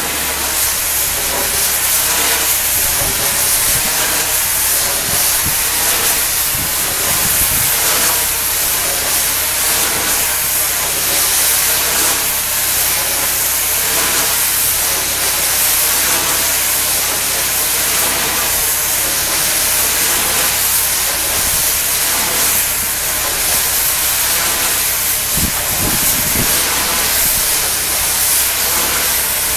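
Pressure-washer wand blasting water against a ribbed concrete wall: a loud, steady hiss of spray, with a low steady hum underneath.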